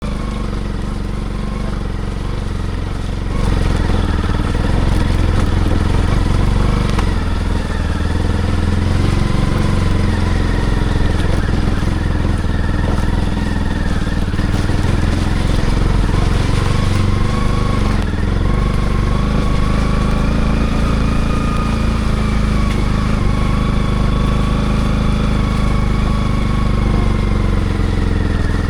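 Motorcycle engine running on the move, its pitch rising and falling gently as the throttle changes. It gets louder about three and a half seconds in.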